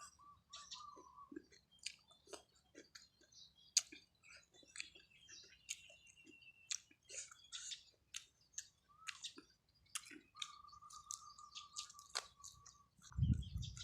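Close-miked chewing of nam tok noodle soup with pork and crispy pork crackling: many short wet smacks and clicks, with a low thump near the end.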